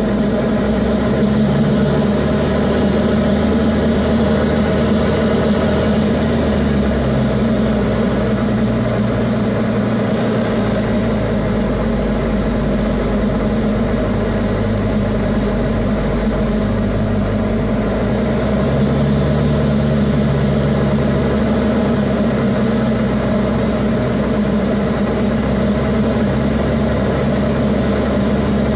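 Diamond DA40's four-cylinder Lycoming IO-360 engine and propeller, heard inside the cockpit in flight: a loud, steady drone. The low hum shifts slightly a few times.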